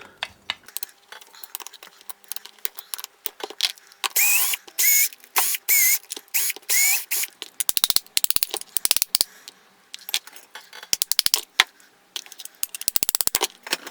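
A ratchet driver clicking rapidly in two bursts as it backs out the crankcase screws of a two-stroke brush cutter engine, with squeaky scraping a few seconds before the first burst.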